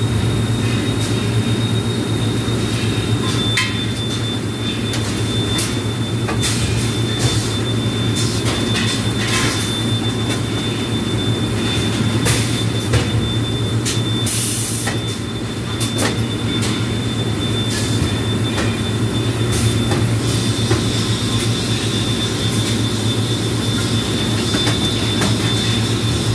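Industrial machinery running with a steady low hum and a faint high whine, with scattered clicks and knocks.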